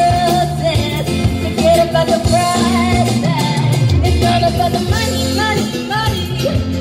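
A young female singer sings live into a microphone, amplified through a speaker over backing music, holding some notes and sliding between others.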